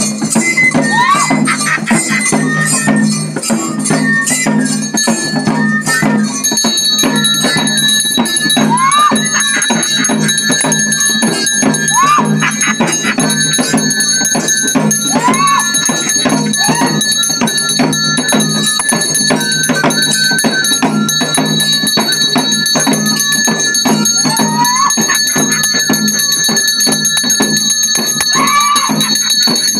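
Tulu bhoota kola ritual music: rapid drumming with a wind pipe playing over it. From about six seconds in, a brass hand bell rings steadily.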